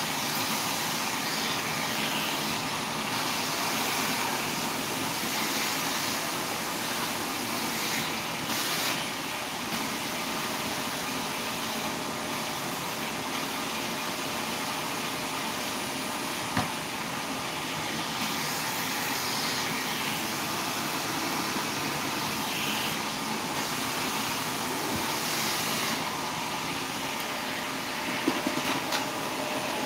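Steady hissing background noise with no change in pitch, with a small knock about halfway through and a few more near the end.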